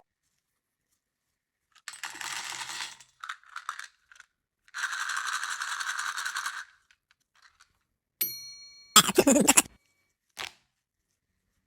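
A string of edited sound effects: two scratchy rustling noises, then a bell-like ding about eight seconds in, followed straight away by a short, loud clattering burst and a single click.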